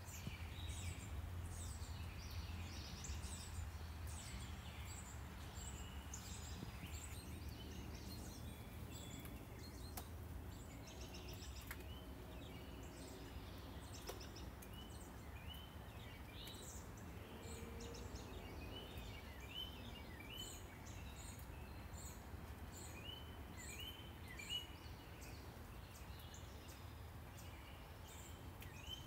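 Wild birds singing and chirping, with a series of short repeated rising notes through the second half, over a steady low rumble of distant traffic.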